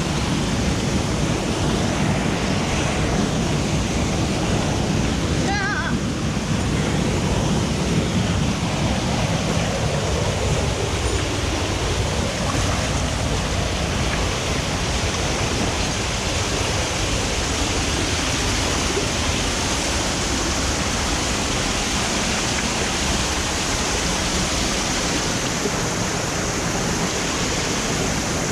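Rushing water of a mountain stream: a loud, steady rush with no pauses. About six seconds in there is a brief high-pitched wavering sound.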